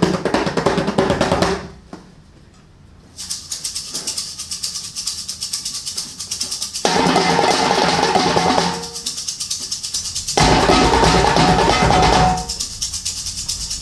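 Kitchen percussion played as a rhythmic beat on steel pot lids, metal tins and other utensils. The beat breaks off about two seconds in and resumes with quick high ticks. A fuller, louder groove returns about seven seconds in, and a deep bass layer enters around ten seconds.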